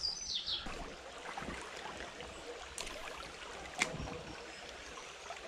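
Shallow stream water running faintly over stones, with a few light clicks, the sharpest about four seconds in.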